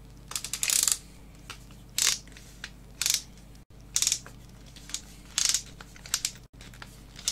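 Clutch collar of a cordless drill-driver being turned by hand: short bursts of ratcheting clicks, about eight over the seconds, as the torque setting is backed off and the collar is moved to drill mode.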